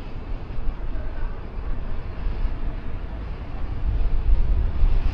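Wind rumbling over the microphone and road noise of a moving bike ride, growing louder about four seconds in.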